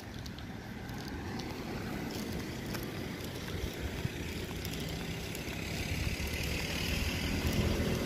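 Road traffic on a town street: a low, steady rumble of passing cars that grows louder toward the end.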